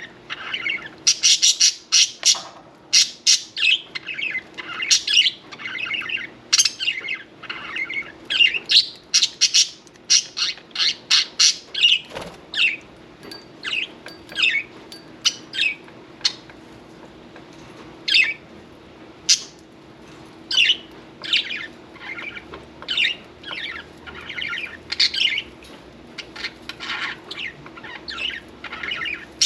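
Budgerigars chattering in rapid short chirps and squawks, thickest in the first half and sparser after, over a faint steady low hum.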